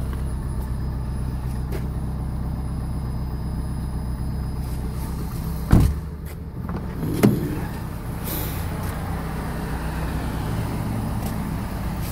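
2006 Nissan Altima's engine idling steadily, with a car door shut with a loud thump about six seconds in and a smaller knock a second or so later.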